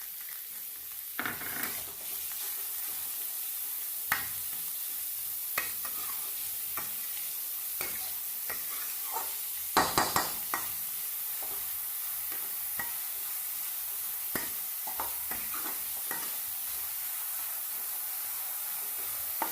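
Chopped onions and capsicum sizzling in hot ghee in a kadhai over high heat, with a spatula stirring and scraping against the pan in short, irregular strokes. A louder cluster of scrapes comes about ten seconds in.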